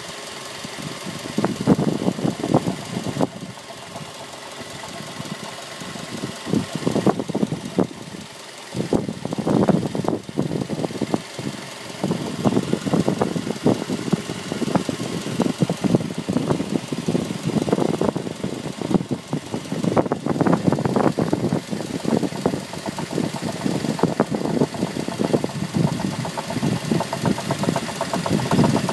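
2006 Mazda3's four-cylinder engine running with a rapid, repeated knocking, louder and softer in several swells.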